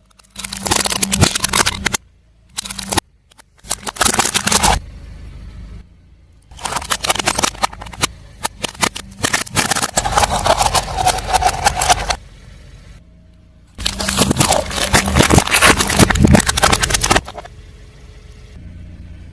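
A car tyre rolling over and crushing crunchy objects: several separate bursts of dense crackling and snapping, the longest lasting about five seconds, over the low hum of the car's engine.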